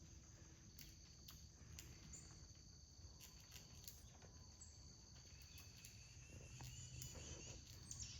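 Faint background of insects, crickets trilling steadily at a high pitch, with a few scattered faint clicks.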